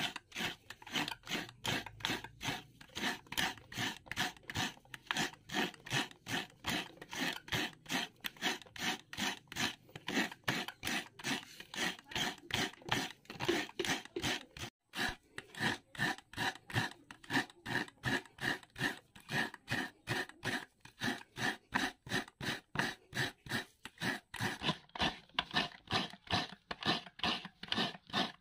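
Fresh coconut half being grated by hand on a serrated metal coconut grater blade (kudkuran): quick, even rasping strokes, about three a second, with one short break about halfway through.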